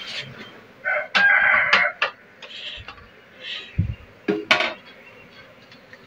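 A rooster crowing once, a call of about a second starting about a second in, followed by a shorter sharp call a few seconds later.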